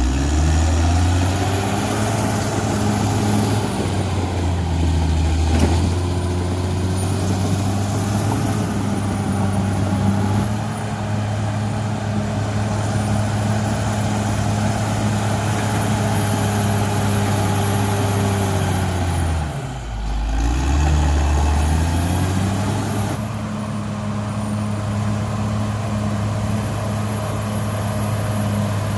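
Cat D6R XL bulldozer's diesel engine running steadily under working load. About two-thirds of the way through, the engine speed sags briefly and then picks back up. A faint high whine sits over the engine.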